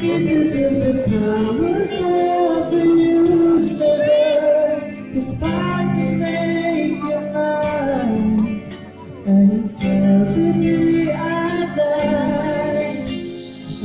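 Music: a song with a sung vocal line of held, wavering notes over an instrumental backing.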